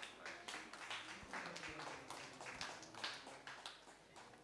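Light, scattered audience applause that dies away near the end.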